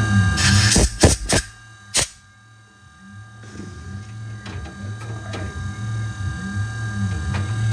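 Tormach 440 CNC mill running with a steady pulsing hum, a brief hiss of spray, and a few sharp clicks. It goes much quieter about two seconds in, then the machine noise builds back up over the following seconds.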